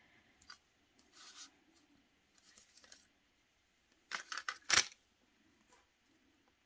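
A wooden alphabet rubber stamp and a VersaFine ink pad being handled: faint rustling, then a quick cluster of sharp taps and clicks about four seconds in, the last one the loudest.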